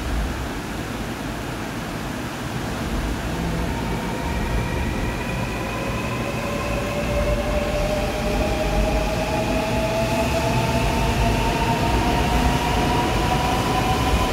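A Seoul Line 4 subway train running through the station without stopping. Its traction motors give a whine of several tones that climb slowly in pitch together as it gains speed, over a low rumble of wheels on rail that grows louder as the cars pass.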